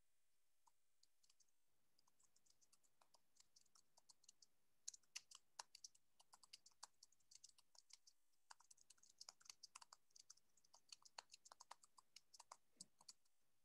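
Faint, irregular clicking of typing on a computer keyboard, starting about four seconds in, over near silence.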